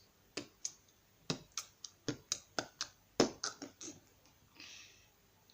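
Slime being squeezed and poked by hand, giving about a dozen sharp popping clicks in quick succession, then a short soft squelch near the end.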